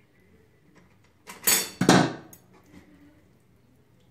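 Metal BBQ skewers clattering against a steel tray and bowl: two sharp metallic clinks close together about a second and a half in, the second ringing briefly.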